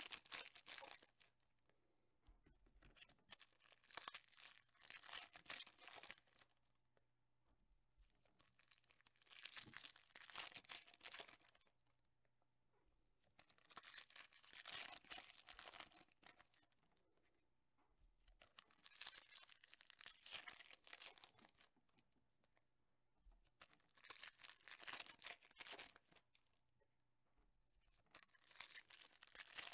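Foil trading-card packs being torn open and crinkled by hand, one after another, in faint bursts every four or five seconds.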